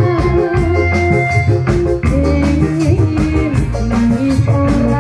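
Live bendrong dangdut music from a reog troupe, played loud through a sound system: a steady drum beat and deep bass under a sliding melody, with a woman singing into a microphone.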